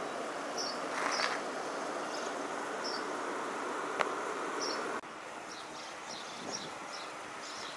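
Outdoor street ambience: a steady background hum with short, high chirps repeating every second or so. There is a sharp click about four seconds in. The hum drops at a cut about a second later, and the chirps come quicker near the end.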